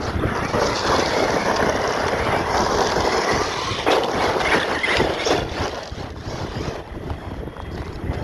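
Large-scale RC monster truck running hard over loose dirt: a loud, rough rush of tyre and gravel noise, with a sharp knock about four seconds in, easing off after about six seconds.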